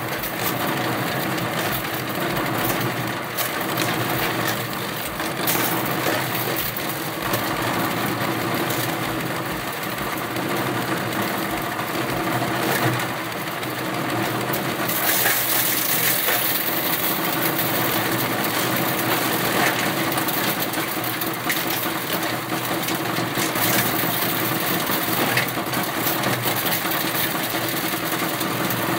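Small engine-driven hammer mill running steadily while crop residues (stalks and seed pods) are fed in and ground into feed, with scattered clicks and knocks over the engine's drone. The sound turns brighter and hissier about halfway through.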